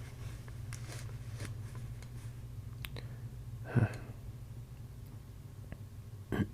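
A man with a cold makes a short, throaty vocal sound a little past halfway and another near the end, over a steady low hum and faint rustling.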